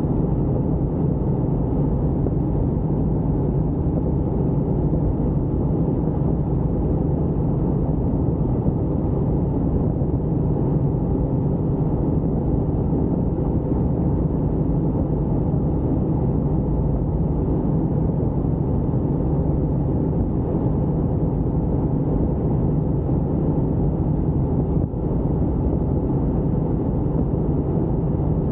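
Helicopter in flight: a steady, unbroken drone of engine and rotors, with a very brief dip about 25 seconds in.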